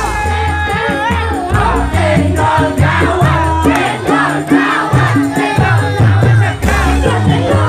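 Live dangdut band music played loud through the stage speakers, a woman singing over bass, keyboard, electric guitar and drums with a steady beat, and crowd voices beneath.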